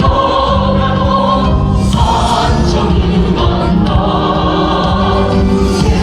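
Many voices singing a song together in chorus over amplified music, loud and sustained.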